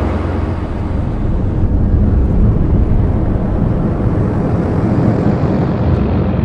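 Dense, loud rumbling noise from an electronic score, heaviest in the bass, with a steady low hum beneath it.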